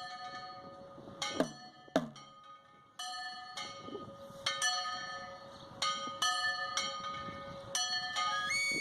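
Bells struck over and over, each stroke ringing on, over a steady high tone. About a second and a half in and again half a second later, two deep thuds fall in pitch.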